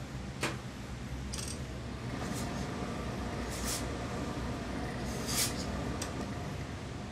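Hands smoothing and sliding over suit cloth on a cutting table, giving several short rustling swishes, the loudest a little past five seconds in, over a steady low background hum.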